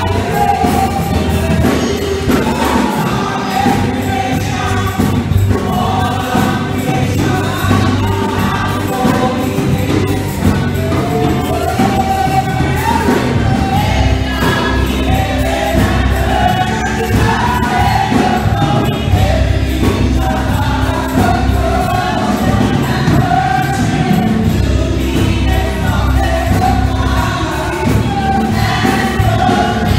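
Live gospel praise-and-worship music: a group of women singing together into microphones, backed by a choir and band accompaniment with a steady bass line.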